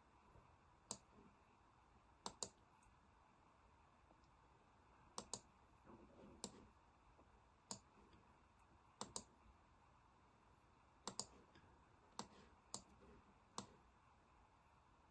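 Faint, scattered sharp clicks at a computer, about fourteen in all, several in quick pairs, over a low steady hiss.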